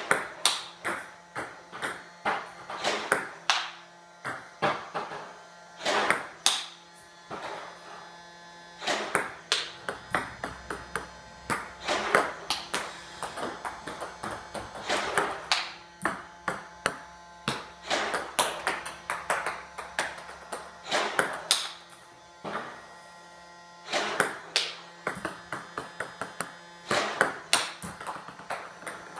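Table tennis balls clicking sharply off a bat and bouncing, one hit after another, often in quick pairs about a second apart.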